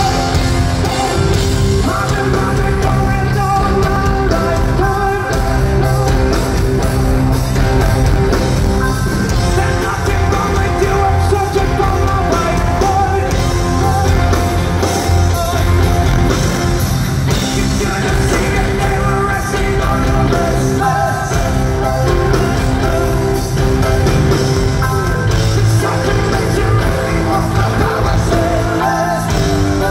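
A rock band playing live through a concert sound system, with drums and a singer, recorded from among the audience.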